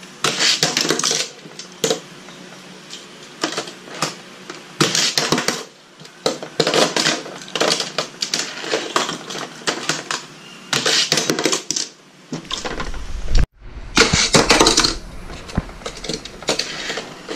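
Die-cast toy cars and plastic Hot Wheels track pieces clattering: irregular clusters of sharp clicks and rattles as cars are pushed through the jump loop stunt and knock against the track and the hard tabletop. The sound cuts out suddenly for a moment about three-quarters of the way through.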